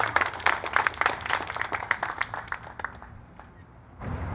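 Guests applauding, the clapping thinning out and dying away about three seconds in.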